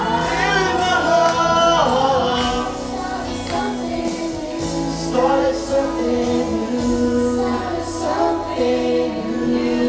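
Male and female voices singing a pop song into microphones over music, with long held notes.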